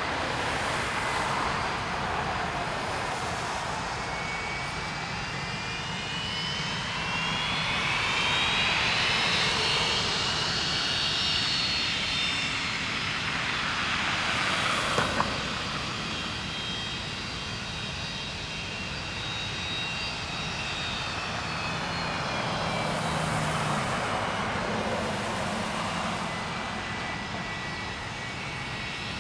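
Twin Pratt & Whitney JT8D turbofans of a McDonnell Douglas MD-83 on takeoff: a loud jet rumble with a high whine that rises, peaks, then slowly falls away as the aircraft passes.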